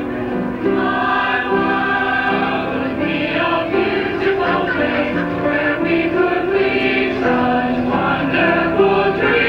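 A group of women singing together as a choir, on held notes that change pitch every half second or so.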